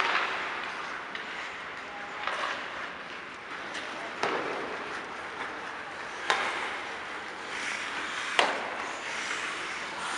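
Ice hockey skates scraping and carving on the ice, with several sharp clacks of sticks and puck; the loudest clack comes about eight seconds in.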